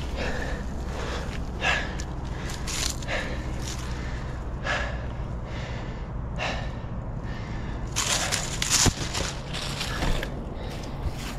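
A tree climber's heavy breathing, a hard breath every second or two as he climbs. About eight seconds in, a louder rustle of branches and dry leaves under his hands, with one sharp click.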